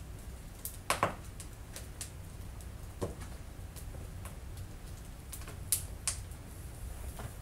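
Wood fire crackling in a wood stove: irregular sharp pops and ticks, the loudest about a second in and again near six seconds, over a low steady rumble.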